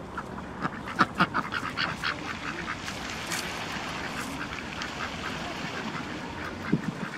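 Domestic duck quacking in a quick run of short quacks, loudest about a second in, then quacking more faintly. A low thump near the end.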